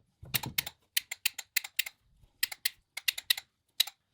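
A hand pipe bender being worked on a multilayer pipe: a run of sharp, irregular clicks and taps in small clusters, about a dozen in all.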